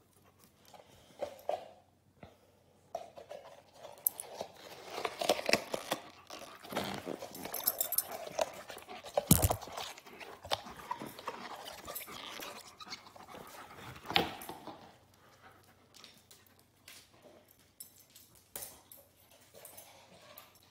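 A dog close to the phone, with irregular clicks, knocks and rustling from its moving about on a hard tiled floor and the phone being handled. A sharp knock about nine seconds in is the loudest sound.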